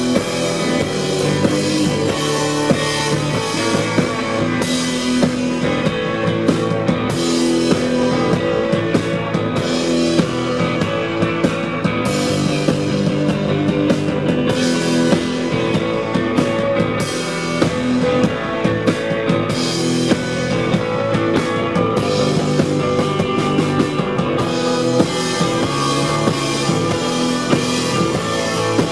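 Live rock band playing an instrumental passage: electric guitar, bass and drum kit going steadily, with no singing.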